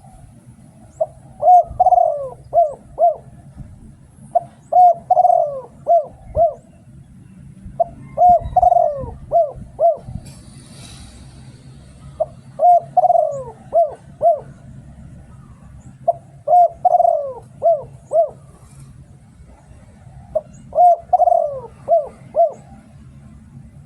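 Spotted dove cooing: six phrases, each a quick run of four or five coos, about one every four seconds.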